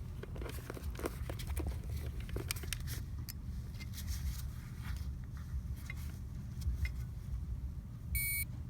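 Steady low hum of a Carrier AC condenser unit's fan running while its compressor stays off, with scattered light clicks and taps of handling. A short electronic beep comes near the end.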